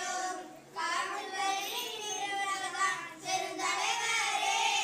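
A small group of children singing a Tamil song together, with short breaks for breath about half a second in and again about three seconds in.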